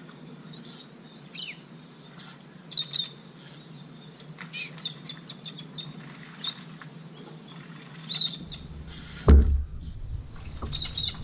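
Small birds chirping and tweeting in short repeated high calls, over a faint steady hum. About nine seconds in comes a single loud thump, the loudest sound.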